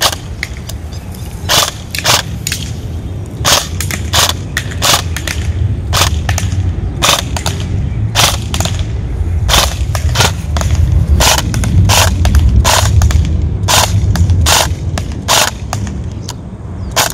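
Beretta ARX 160 airsoft electric rifle (AEG) firing single shots, about two dozen sharp cracks at uneven intervals. A steady low rumble runs underneath and swells in the middle.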